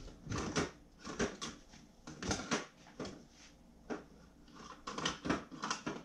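Objects being handled off to the side: a string of irregular clicks, knocks and rattles, coming in short clusters.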